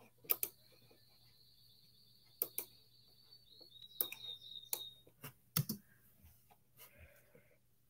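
A computer mouse clicked a number of times, several clicks coming in quick pairs. A faint, high, steady whistle sounds underneath through the first half and wavers just before it stops.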